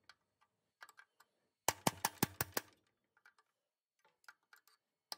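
Hammer tapping a steel punch to drive out a split roll pin: a few light taps, then a quick run of about six sharp metallic taps in about a second, then a few faint ones.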